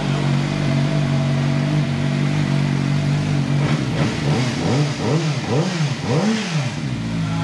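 CFMoto 500SR Voom's parallel-twin engine idling, then given a quick run of about five throttle blips about three and a half seconds in, each rising and falling in pitch, before settling back to idle.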